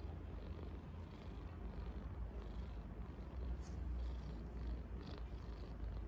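Korean Shorthair cat purring close to the microphone: a continuous low rumbling purr, the contented purr of a cat that is feeling good.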